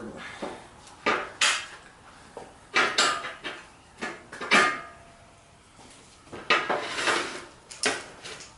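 Irregular metallic clanks and rattles of steel shop equipment being handled and shifted, about nine sharp knocks with a brief ring after each.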